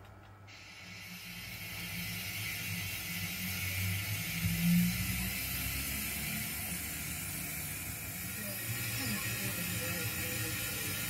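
O gauge model steam tank locomotive moving slowly: a steady steam hiss starts about half a second in, over the low mechanical hum of its motor and wheels, which swells briefly about five seconds in.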